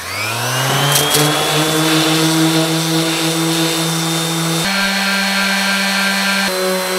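Electric random orbital sander starting up with a rising whine, then running steadily as it sands dried Bondo body filler on the bus's steel side panel. Its pitch steps abruptly twice, about two-thirds of the way through and again near the end.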